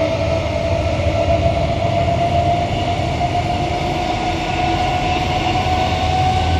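Interior of a Queensland Rail electric multiple unit carriage running at speed between stations: a steady low rumble and running noise, with a clear whine that climbs slowly in pitch as the train picks up speed.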